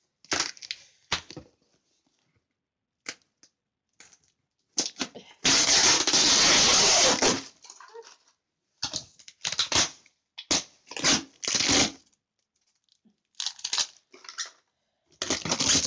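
A cardboard parcel being torn open by hand: brown packaging and tape ripping and the box rustling and crackling in irregular bursts, with one long loud tear of about two seconds near the middle.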